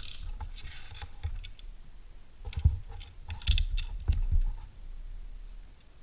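Irregular clicks, taps and scraping from handling a thick trading card and a yellow snap-off utility knife on a wooden table, with a few sharper clicks and knocks around the middle.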